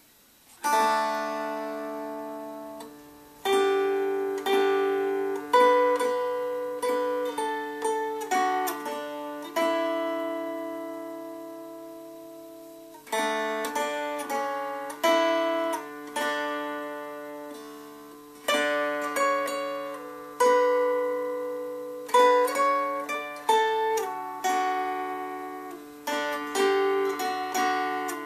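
Homemade lap dulcimer strummed with a pick, a slow melody picked out note by note while the drone strings ring steadily beneath. Each strum is left to ring and fade before the next, with a few quicker runs of notes between longer held ones.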